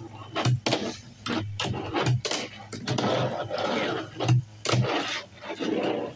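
Fingerboard clacking on a tabletop: a string of sharp clicks as the little board is popped and landed, with its wheels rolling and scraping along the table in between.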